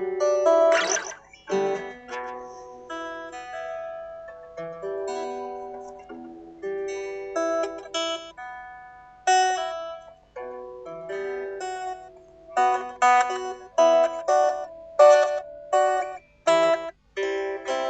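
Solo guitar played freely: single picked notes and small chords that ring and fade, with a quick slide about a second in, and quicker, denser picking in the second half.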